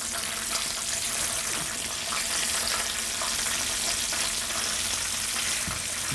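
Breaded chicken pieces shallow-frying in hot oil in a skillet: a steady sizzle, with a few faint ticks as the pieces are turned with tongs.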